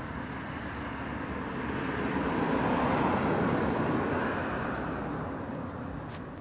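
A car passing by on the road: its tyre and engine noise swells to a peak about halfway through, then fades away.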